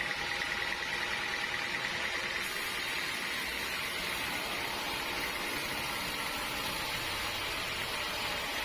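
Sawmill machinery running steadily: an even, hissing mechanical noise with a faint held whine. About two and a half seconds in the sound turns brighter and hissier.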